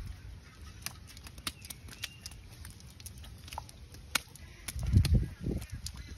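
Live fish being picked by hand out of a cast net lying on bare earth: the fish flapping and the net rustling, with scattered light clicks and a burst of dull thumps about five seconds in.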